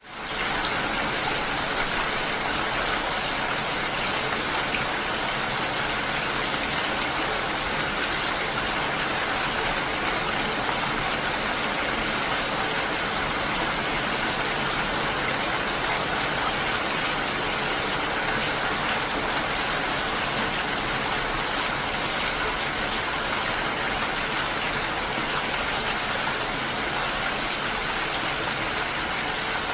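Steady rain falling, a dense even hiss of drops that fades in over the first half second.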